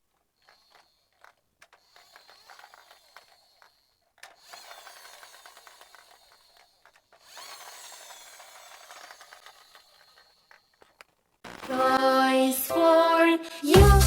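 Faint scattered clicks and two stretches of light mechanical rasping, like a small toy mechanism being handled or spun. About eleven and a half seconds in, a loud musical intro jingle starts and carries on to the end.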